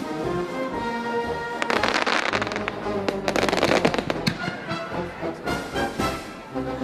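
Fireworks going off over music, with sharp bangs and a dense run of crackling pops from about two to four seconds in, then scattered single bangs.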